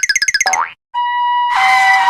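Cartoon sound effects: a springy boing with a fast warble, then about a second in a steady beep, joined near the end by a noisy rush with held tones.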